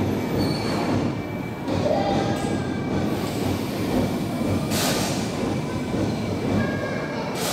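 Railway car rolling slowly along the track: a steady rumble of wheels on rail with a thin high wheel squeal, and a short hiss about five seconds in.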